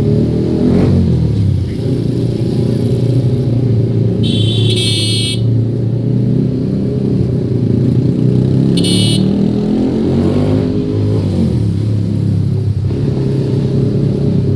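A Yamaha MT-15 motorcycle's single-cylinder engine runs under way in traffic, its pitch shifting as the throttle changes. A high-pitched horn blasts for about a second around four seconds in, then sounds briefly again near nine seconds.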